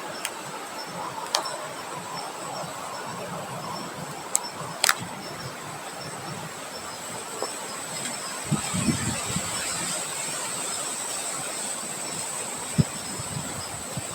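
Outdoor wind ambience: a steady rush of wind with a thin, constant high-pitched whine over it, a few sharp clicks in the first half, and low buffeting gusts on the microphone partway through.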